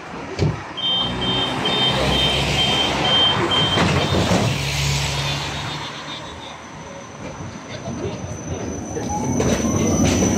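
A tram passing close alongside on the next track, its running noise swelling through the middle. In the first few seconds there is a quick run of high electronic beeps, about three a second. Near the end a thin high squeal of steel wheels on rail sets in.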